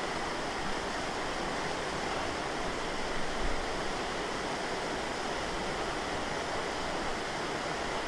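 Steady rushing of shallow river water flowing through a concrete channel, with a brief slosh about three and a half seconds in as a cast net is lifted out of the water.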